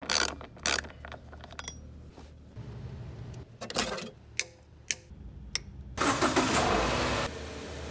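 Scattered sharp clicks and metal clanks of a socket ratchet and hand tools on car fittings, then a loud hiss lasting about a second, about six seconds in.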